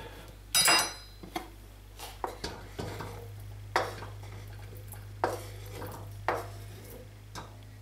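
A metal clink with a short ring about half a second in, then a series of separate light knocks and taps as a plastic cutting board is tipped and knocked against a stainless steel pot, sliding cut octopus pieces in onto the potatoes.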